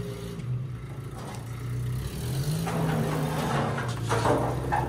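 2002 Maruti Gypsy's four-cylinder petrol engine running as the jeep pulls away, the revs rising briefly about halfway through. A short louder noise comes near the end.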